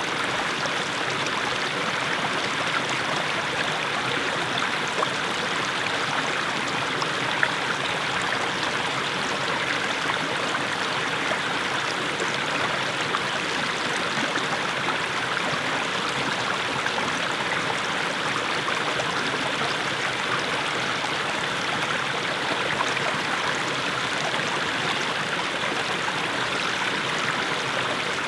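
Small mountain stream splashing steadily over low steps of mossy stones.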